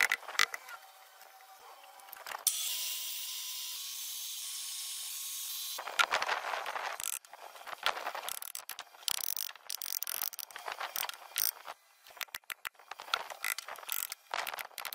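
Woodworking bench sounds: a few taps of a wooden mallet driving a nail into a pine frame, then a steady hiss for about three seconds, then a busy run of clatters, scrapes and taps as pine boards are handled and knocked into place with the mallet.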